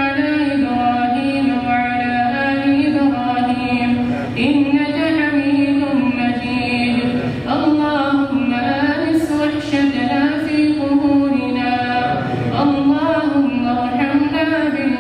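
A man's voice chanting an Arabic supplication in long, drawn-out melodic phrases, about four in all, each held for several seconds. It comes through a microphone and sound system.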